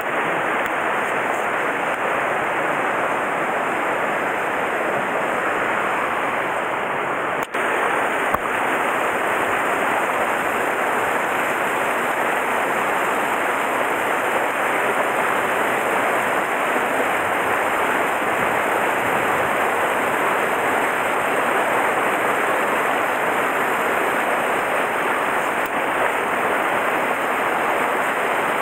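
Mountain stream water rushing steadily, with a brief dropout and a click around seven to eight seconds in.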